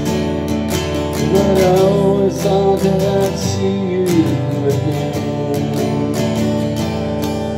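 Acoustic guitar strummed steadily while a harmonica plays a melody over it, in an instrumental break between sung lines. The harmonica is clearest in the first half and fades back under the guitar after about four seconds.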